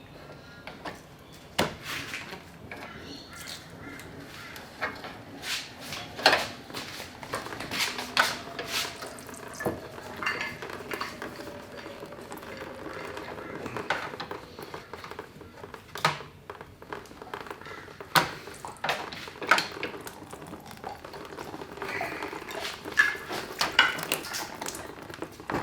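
Irregular metallic clinks and knocks of tools and parts being handled and set down.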